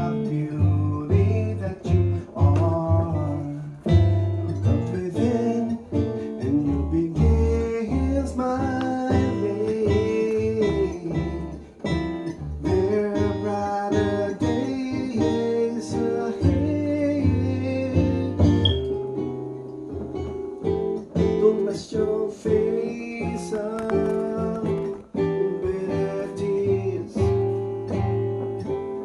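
Music played on an electronic keyboard, with bass notes, chords and a guitar-like melody line.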